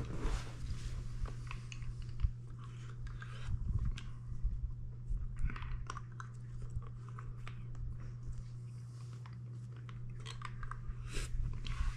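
Wet mouth sounds of a man sucking on a large cinnamon hard-candy lollipop, with many small scattered clicks as the candy moves in his mouth. A steady low hum runs underneath.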